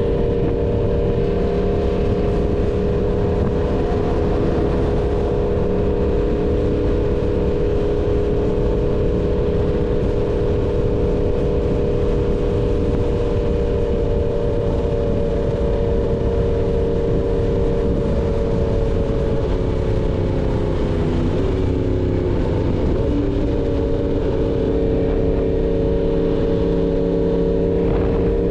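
Yamaha MT-10's crossplane inline-four engine through an SC Project full-system exhaust, running at a steady engine speed. About twenty seconds in the pitch drops briefly, then settles back to a steady note.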